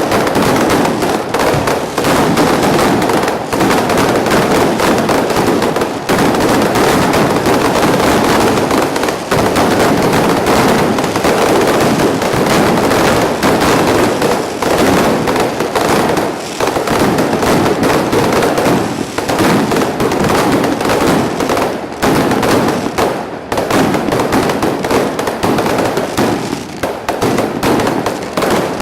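Firecrackers and fireworks going off in a dense, continuous barrage of rapid bangs with no pauses.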